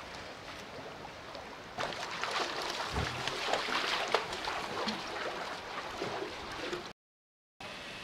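Mountain stream water rushing and splashing over rocks. About two seconds in it becomes louder and splashier. The sound cuts out for a moment near the end.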